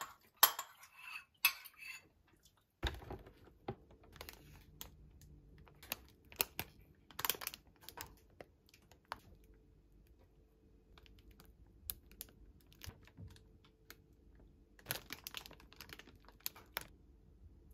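A ceramic bowl and metal spoon clinking as they are set down, then plastic grocery bags and packaging being handled on a stone countertop in scattered sharp clicks, taps and rustles. A faint steady hum comes in about three seconds in.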